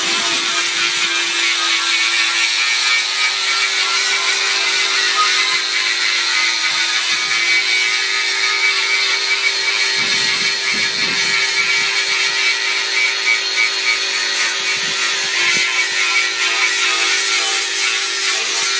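Electric angle grinder running steadily with a sanding disc, its motor whine under the hiss of the disc grinding paint off a metal motorcycle fuel tank.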